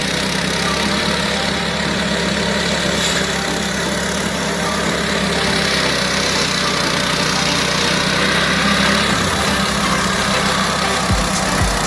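Matsumoto MWG-170 D grass chopper's engine running at a steady speed. A few low thumps come near the end.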